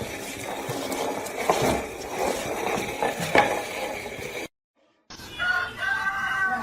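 Scattered knocks and clatter over a noisy background. After a brief dropout, a dog starts a high, wavering howl near the end.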